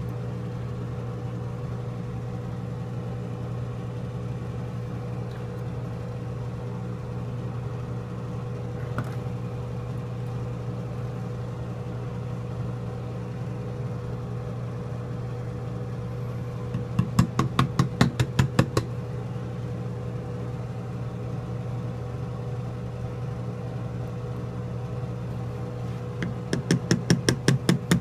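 A steady low electrical hum runs throughout. Over it come two runs of rapid, even knocking, about eight knocks a second for roughly two seconds each, a little past halfway and again near the end.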